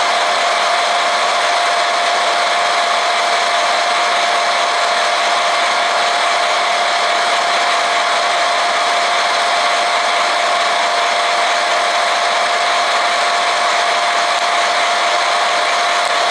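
Mini hot-air popcorn maker running, its fan blowing hot air in a steady rush with a steady whine. The corn kernels are tumbling in the chamber as they heat, not yet popping.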